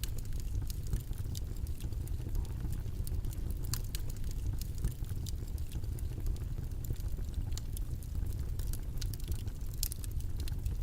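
Steady low rumbling background noise with faint, irregular crackles and clicks scattered through it.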